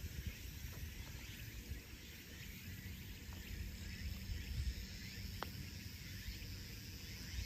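A putter striking a golf ball once, a short sharp click about five and a half seconds in, over steady insect chirring and a low wind rumble on the microphone.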